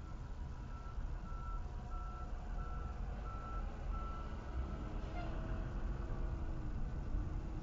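Road and engine rumble heard from inside a moving car, with a steady electronic beep repeating about every two-thirds of a second that stops about four seconds in.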